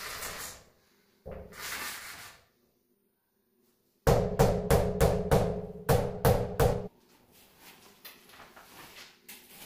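Rubber mallet tapping a granite countertop slab to bed it into its mortar base. After a brief silence comes a quick run of about ten knocks, roughly three a second, then a few softer sounds.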